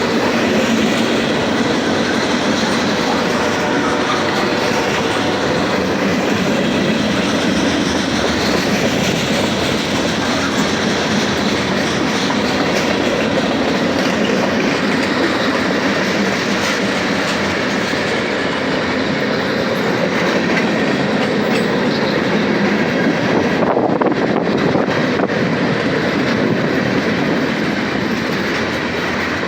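Norfolk Southern freight train passing close by: a loud, steady rumble of steel wheels rolling over the rails, with clickety-clack from the rail joints.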